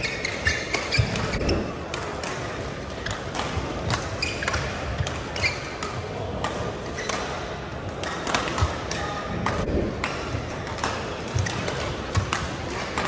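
Singles rally in a racket sport: sharp hits of the ball or shuttle at irregular intervals, short squeaks, and a murmur of background voices.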